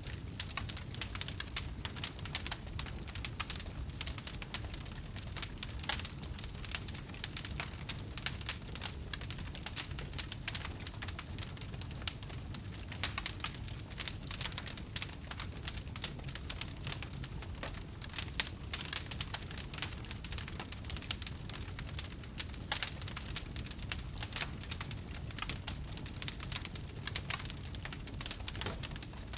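Wood bonfire crackling: a constant run of irregular sharp pops and snaps over a low, steady rumble.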